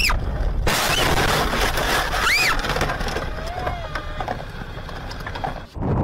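Car striking a wheel loader's raised bucket: a sudden loud crash about a second in as the windshield shatters, then a rough clatter of breaking glass and debris. A person cries out over it.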